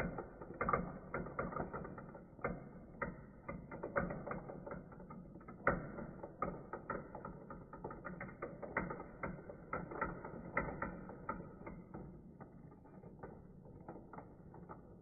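Marbles clattering and rolling through a plastic marble run's spiral chutes and funnel: a dense, irregular run of clicks and rattles that thins out near the end.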